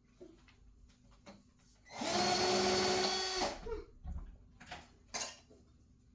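Cordless drill running in a single burst of about a second and a half, starting about two seconds in, backing a screw out of a chair, with a few light clicks and knocks from the parts being handled afterwards.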